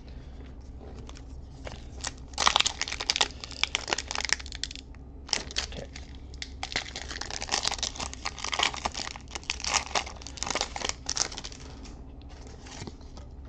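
Foil wrapper of a Pokémon TCG Scarlet & Violet 151 booster pack crinkling as it is handled and torn open, in two crackly stretches starting about two seconds in, with a short pause near the middle.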